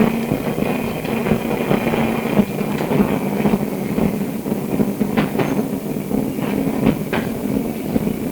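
Interior running noise of an SW5 class electric tram on the move, with a steady low hum from the traction gear under the wheel and track rumble. There are a few sharp clacks from the wheels about five seconds in and again about seven seconds in.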